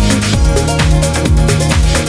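Electronic dance background music with a steady four-on-the-floor kick drum, about two beats a second, over a sustained bass and synth melody.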